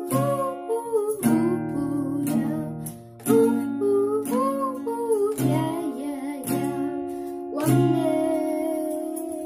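Cutaway steel-string acoustic guitar with a capo, strummed in chords with a strong strum every second or two, and a boy's voice singing along over it.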